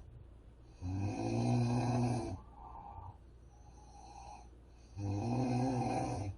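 A woman snoring loudly: two long snores about four seconds apart, with quieter breathing between them.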